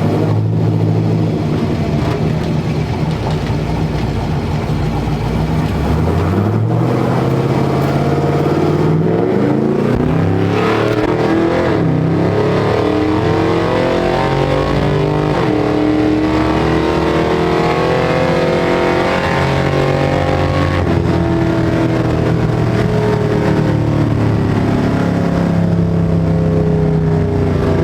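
LS V8 engine under Holley Terminator X fuel injection running at idle. Its pitch climbs from about six seconds in, holds higher, then eases slowly down toward the end.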